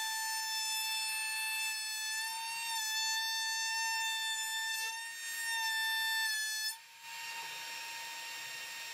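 Makita router spinning a bevel bit in a router table, a steady high-pitched whine that sags briefly in pitch twice as a board is fed past the cutter to cut a 45-degree bevel. About seven seconds in it drops to a quieter, steady whine as the board comes off the bit.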